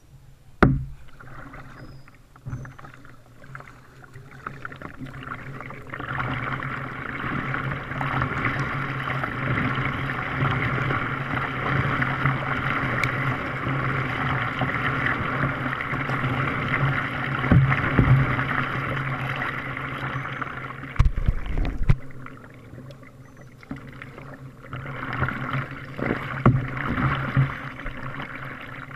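Kayak paddle strokes: water splashing and dripping off the paddle blades, a rushing noise that swells through the middle and again near the end, over a steady low hum. A sharp knock about a second in and a low bump about two-thirds of the way through.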